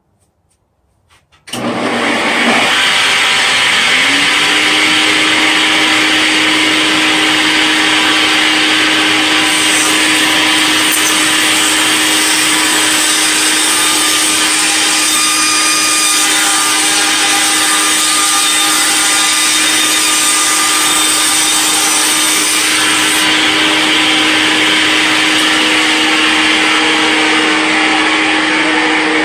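Table saw switched on about a second and a half in: its motor spins up to a steady hum and runs loud. It rips half of a 3/8-inch dowel, hot-glued into a grooved wooden jig, and the sound is brighter while the blade is cutting, from about ten seconds in until a little past twenty.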